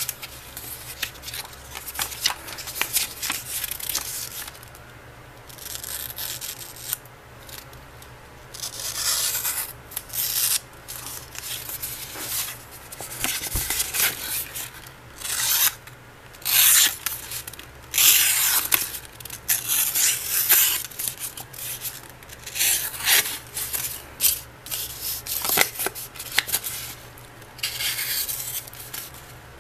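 A sheet of paper being sliced with a very sharp high-speed-steel knife and handled: a string of irregular rustles and cutting strokes with short pauses between them.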